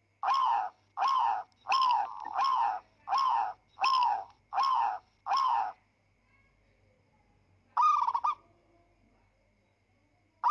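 An animal calling loudly in a quick, even run of eight short, pitched calls about two-thirds of a second apart, then, after a pause, one more call about eight seconds in and another starting right at the end.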